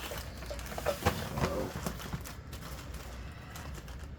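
A few light clicks and knocks from firecracker packs being handled and set down, over a low steady hum.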